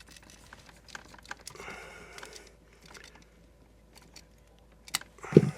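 Light scattered clicks and taps of hand tools and wire being worked in a breaker panel, with a soft rustle about two seconds in, then a sharp click and a heavier low thump near the end.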